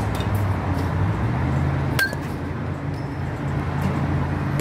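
A single sharp metallic clink with a short ring about two seconds in, typical of a softball striking an aluminium bat or the cage's metal frame, over a steady low machine hum.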